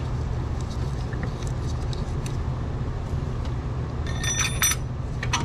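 Light metallic clicks of steel bolts being handled and set into an engine mount bracket, with a short cluster of ringing metal clinks about four seconds in, over a steady low rumble.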